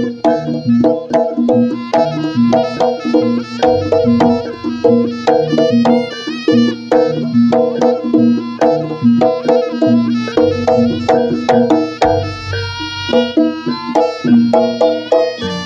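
Javanese jaranan accompaniment: drums and tuned gamelan percussion playing a fast, steady beat for the horse dance.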